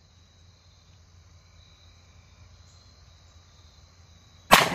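Insects buzzing steadily, then about four and a half seconds in a single shot from a 10mm Springfield XD-M Elite 3.8-inch pistol firing a full-power 170-grain hollow-point load, its report echoing away over about a second and a half.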